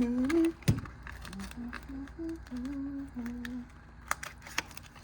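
A man humming a tune to himself in short stepping notes, with a few sharp clicks from handling, about a second in and again near the end.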